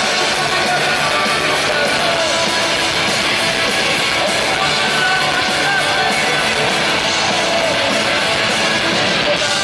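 Live punk rock band playing loud, with distorted electric guitars, drums and a voice singing.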